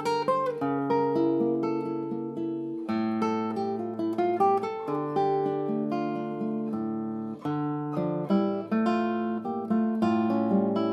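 Solo cedar-top classical guitar playing a milonga: plucked bass notes held under a moving melody and chords.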